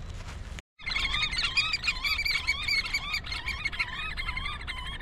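Several variable oystercatchers calling over one another with rapid, warbling high piping, a squabbling family group. It starts abruptly just under a second in, after a low wind-like rumble.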